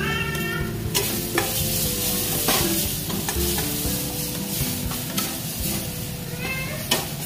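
Metal spatula stirring a thick mango mixture frying in a metal kadai. The mixture sizzles steadily, and the spatula scrapes and knocks against the pan now and then.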